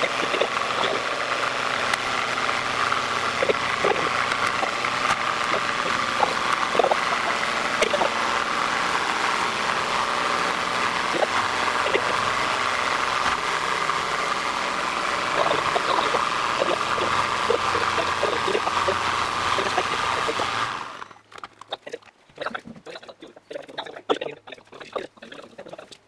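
Steady mechanical running noise of a Stirling engine worked as a heat pump, with a strong high hum and scattered small clicks. It drops away abruptly about 21 seconds in, leaving only a few light clicks and knocks.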